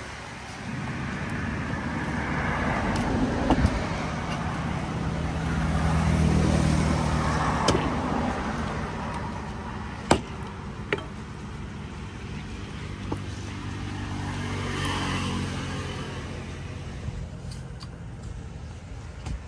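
Road traffic going by, the engine hum swelling to a peak about six seconds in and again more faintly later. Over it come a few sharp knocks of a knife chopping fish on a wooden board, the loudest about ten seconds in.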